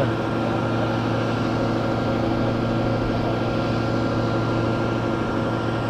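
Diesel engine running steadily at a constant pitch, a low hum.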